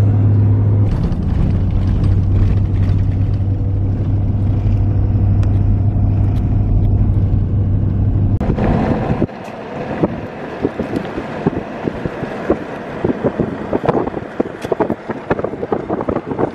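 Road noise inside a moving vehicle: a steady low drone with a constant hum on the paved highway. About nine seconds in it changes to a quieter crackle of many sharp ticks, tyres crunching over a gravel road.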